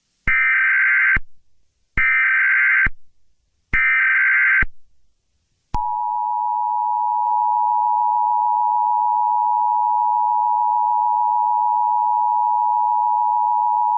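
Emergency Alert System header: three short bursts of SAME data tones, each just under a second with brief gaps between. About a second later comes the EAS attention signal, a steady two-tone sound held for about eight seconds. Together they are the standard opening that signals an emergency alert message.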